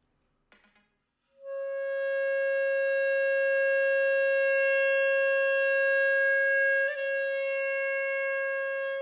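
Clarinet holding one long, steady note that enters about a second and a half in, with a small catch about seven seconds in and a little softer after it. The note is played from a graphic score, with dense, dark lines read as louder.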